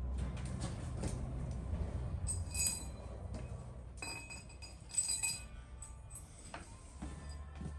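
Metal pieces clinking together in a workshop: two ringing clinks, about two and a half and five seconds in, with lighter knocks between them, over a low steady hum.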